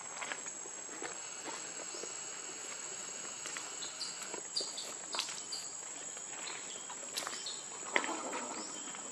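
Outdoor forest ambience with a steady high insect drone, a few short high chirps in the middle, and scattered small clicks. About eight seconds in there is a sharp tick and a brief rustle.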